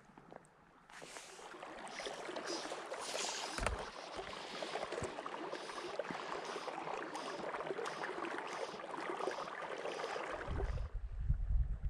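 Shallow river current rushing and splashing close to the microphone around a wading angler, starting about a second in. Near the end it gives way to low wind buffeting on the microphone.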